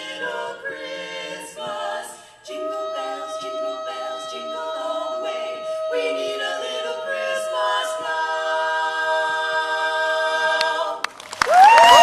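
Women's barbershop quartet singing a cappella in four-part harmony, the closing phrase of the song ending on a long held chord. Near the end the singing cuts off and a loud, different sound with sliding tones comes in.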